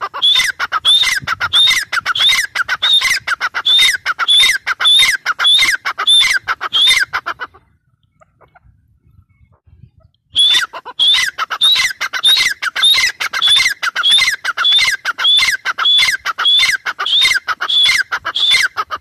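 Grey francolin calling: a loud run of repeated shrill notes, about two a second, in two bouts separated by a pause of about three seconds.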